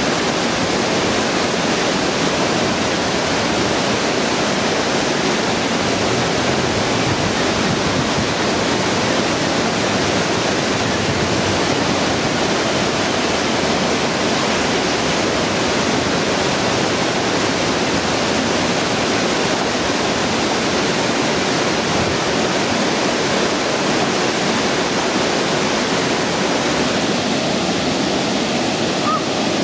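Water rushing steadily over a river dam.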